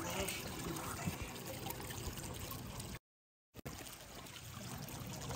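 Water trickling steadily, a low even splashing. About three seconds in, the sound cuts to dead silence for about half a second, then resumes.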